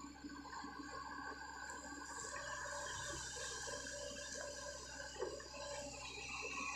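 Sany SY55C mini excavator's diesel engine running steadily under hydraulic load as it digs a trench, growing a little louder near the end.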